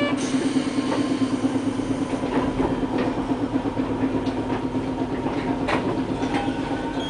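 Streetcar running along street track, heard from inside the car: a steady low hum over a rumble of wheels on the rails, with a few scattered clicks from the track.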